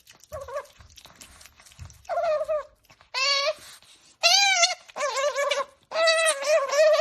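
Pet otter giving happy, squeaky pitched calls while eating, about six short wavering calls with short gaps between them, coming closer together in the second half. Faint clicks sound between the calls early on.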